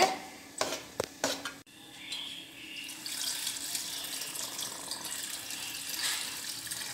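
Jaggery syrup poured through a steel strainer into a pot of jackfruit puree, a steady liquid trickle and splash. It is preceded by a few sharp knocks of a steel spoon against the aluminium pot.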